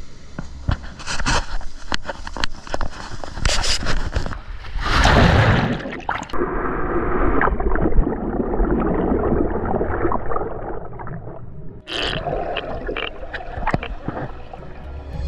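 Water splashing and knocking against a handheld action camera as it goes into the surf. About five seconds in, a wave breaks over it. Then comes muffled underwater gurgling and rushing for about six seconds, and splashing again near the end.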